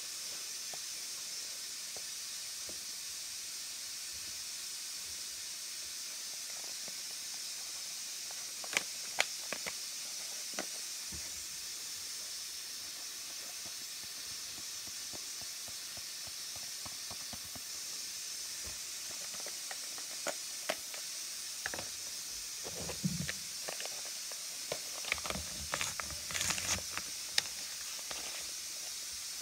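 Steady background hiss, with a few light clicks about a third of the way in and a busier run of clicks and short rustles in the last third, as a paper pouch is handled and tipped to shake agar powder onto a digital kitchen scale.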